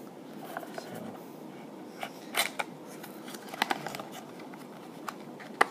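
Handling of a small cardboard product box and its packaging: scattered soft clicks and rustles, with one sharper click near the end.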